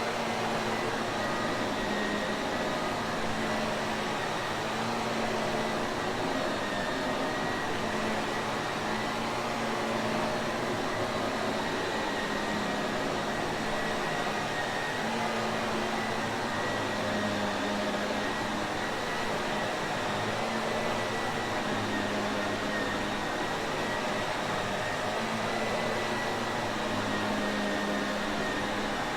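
Shark Navigator upright vacuum cleaner's motor running steadily with an even whooshing hum and a faint high whine.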